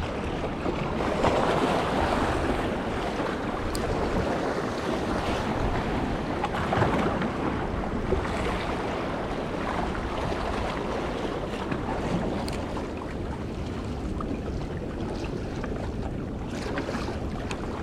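Sea waves washing against a rock wall, a steady rushing wash with wind rumbling on the microphone.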